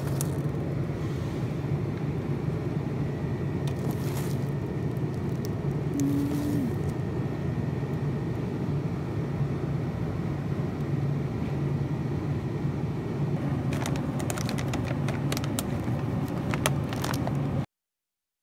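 Steady low hum and hiss of convenience-store background noise, with scattered crinkles and clicks of plastic-wrapped food packages being handled, most of them in the last few seconds; the sound cuts off abruptly near the end.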